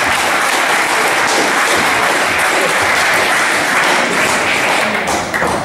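Audience applauding, a dense steady clapping that dies away about five seconds in.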